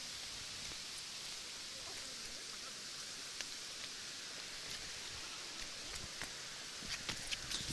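Steady hiss of a nearby waterfall and stream, with leaves and branches rustling as someone pushes through thick undergrowth, and a few short crackles near the end.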